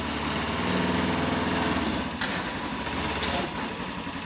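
A vehicle engine running steadily, its pitch swelling briefly about a second in.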